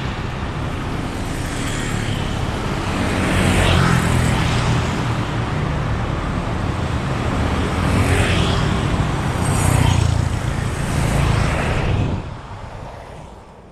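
Steady road traffic with cars and motorbikes passing back and forth, several passing close and louder. The sound fades out near the end.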